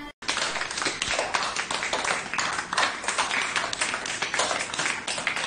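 Several children clapping their hands, a dense, uneven run of claps that starts right after a brief cut-out.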